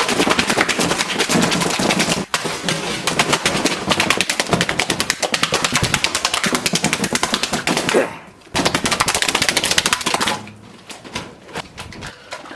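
A fast, continuous run of sharp knocks or bangs, many a second, broken briefly twice, then dying down to fainter, scattered sounds after about ten seconds.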